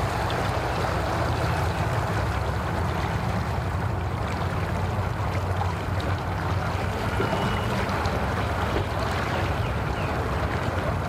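Yamaha 150 outboard motor running at low speed, a steady low drone.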